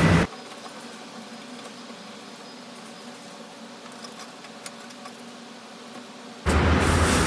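Faint steady mechanical hum with a few light clicks, between loud music that cuts off just after the start and comes back near the end.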